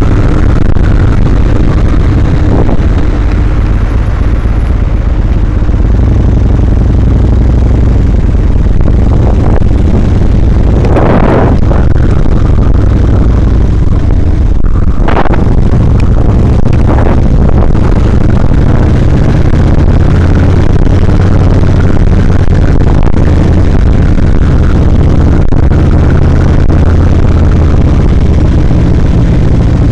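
Cruiser motorcycle running on the road, its engine mixed into heavy, steady wind rush on the microphone, with brief louder swells about eleven and fifteen seconds in.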